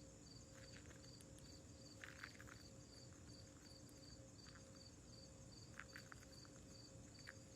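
Faint cricket chirping, an even run of short chirps at about two to three a second, with a few soft clicks.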